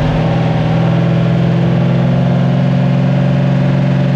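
Off-road race truck's engine running loudly at a steady, unchanging pitch, heard from inside the open cab.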